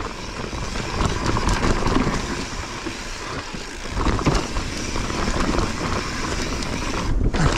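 Mountain bike riding fast down a steep dirt trail, recorded from a chest-mounted camera: continuous rolling and rumbling noise from the tyres and wind, with frequent clicks and knocks as the bike rattles over the rough ground.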